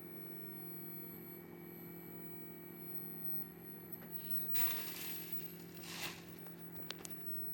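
Steady low electrical hum with a faint high whine from the bench setup running a switching power supply under load. About four and a half and six seconds in come two brief rustling scrapes, then two sharp clicks near the end.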